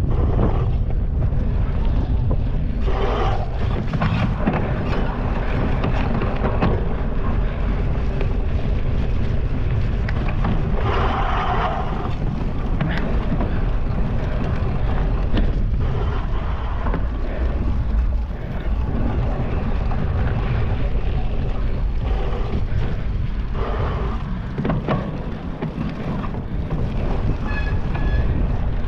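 Wind buffeting a GoPro's microphone during a cyclocross race ride, a steady low rumble with frequent rattles and knocks from the bike on rough ground.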